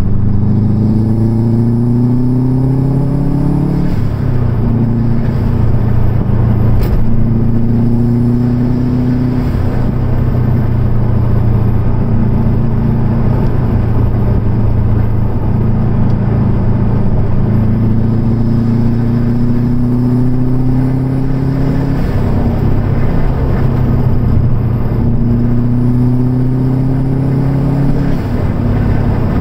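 Car engine and road noise heard from inside the cabin while driving. The engine note rises in pitch four times as the car accelerates, each rise falling back sharply before the next.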